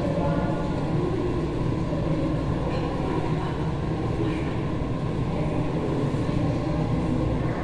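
Steady low rumbling noise with faint voices under it.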